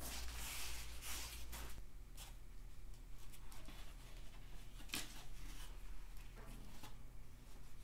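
Hands working the foam-insulated refrigerant line bundle of a mini-split indoor unit with a zip tie and white tape. There is a hissing rustle for the first two seconds, then scattered light rustles and clicks, with one sharp click about five seconds in. A steady low hum sits underneath.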